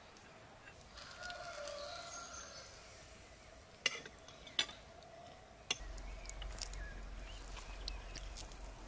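A rooster crows once, about a second in. A few sharp clinks of cutlery against plates follow.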